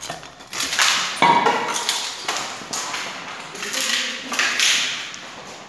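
A series of knocks and clatters of hard objects, one about a second in ringing briefly like struck metal.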